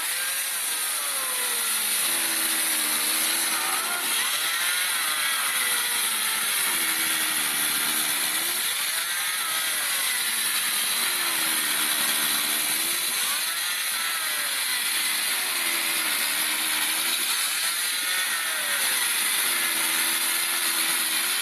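1968 Remington air-powered chainsaw running on 125 psi of compressed air and cutting wood, with a steady hiss. The air motor's pitch sags and climbs back again about every four seconds, as the chain loads up in the cut and frees.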